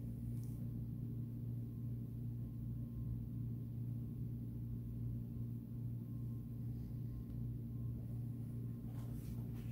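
Steady low hum at an even level, with a few faint clicks near the end.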